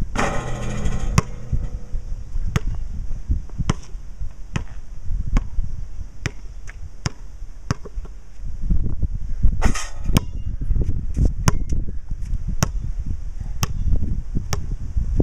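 A basketball bouncing on a concrete court, short sharp knocks about two a second, with wind buffeting the microphone. A longer ringing sound comes at the start and again about ten seconds in.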